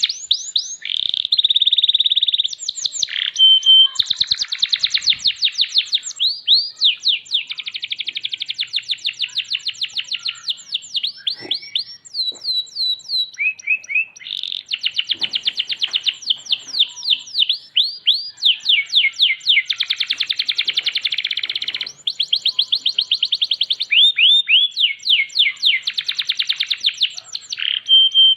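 Domestic canary singing a long, loud, high-pitched song of fast trills and rolls, phrase after phrase of rapidly repeated notes and quick sweeping notes with only brief breaks.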